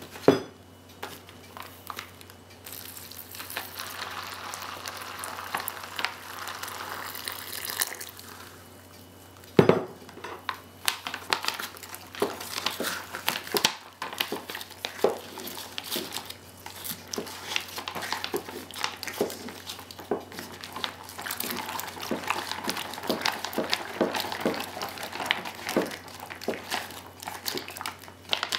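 Hot water poured from a glass measuring cup into a foil-lined freeze-dried meal pouch for several seconds, then a single knock. After that a metal spoon stirs and scrapes the rehydrating chili macaroni inside the crinkly pouch, with many small clicks.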